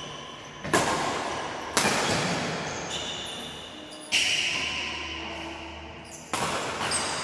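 Badminton rackets striking a shuttlecock in a doubles rally: four sharp hits about one to two seconds apart, each ringing on in a reverberant hall.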